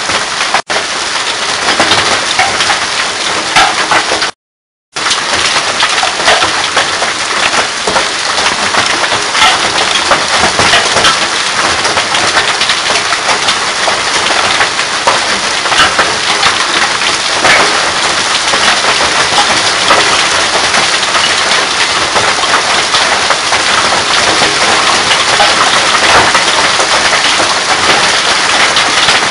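Hailstorm: hail and rain pelting down steadily, a dense patter of countless small impacts. The sound drops out completely for about half a second around four seconds in.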